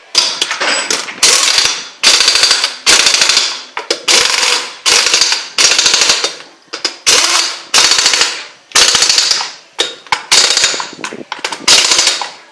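Pneumatic impact wrench run in short bursts, about one a second, each a rapid hammering rattle over air hiss, as it drives bolts.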